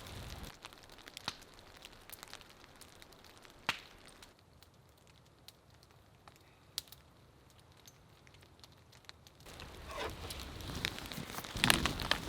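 Sparse pops and crackles of a campfire over a faint hiss of rain. About ten seconds in, the rain hiss grows louder, with many sharp drop hits close by.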